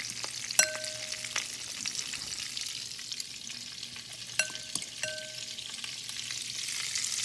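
Oil and butter sizzling and bubbling in a frying pan as they heat for deep-frying. Three short metallic clinks ring briefly over the sizzle.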